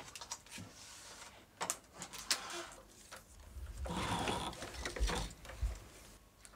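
Film-handling machinery in a Super 8 sound-striping lab working: scattered mechanical clicks and knocks, with a louder run of machine noise about four seconds in.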